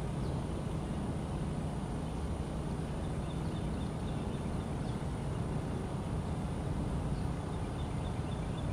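Steady outdoor background rumble with faint short high chirps now and then.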